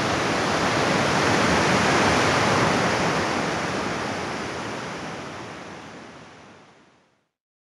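Sea surf breaking on a beach, a continuous rush of waves that swells slightly and then fades out to silence near the end.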